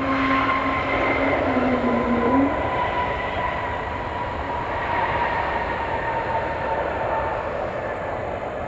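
Jet airliner engines, a steady roar with a high whine that falls slowly in pitch.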